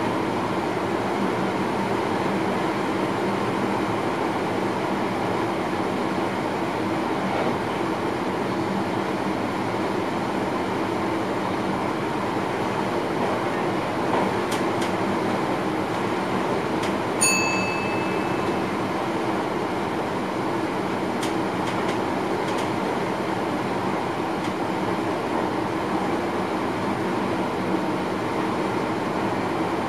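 Steady running noise of a passenger train heard inside the driver's cab. About seventeen seconds in there is a single short high beep, and there are a few faint clicks.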